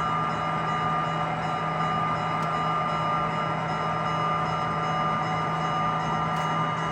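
Several sound-equipped HO scale model locomotives playing through their small speakers: a steady mix with a constant low hum and several held tones above it, unchanging throughout.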